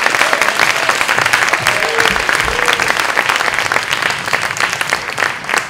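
Audience applauding steadily, with a few short cheers from voices in the crowd.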